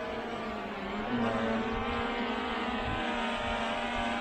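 Camera drone's propellers whining as it comes in to land: a steady whine of many tones that steps up in pitch and gets a little louder about a second in.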